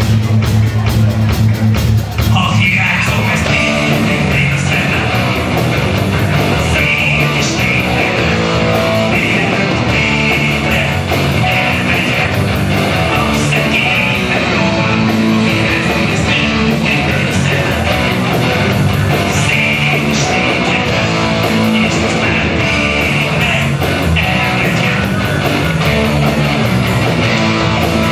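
Live rock band playing on stage: electric guitars, drums and keyboard, with the song changing section about two seconds in.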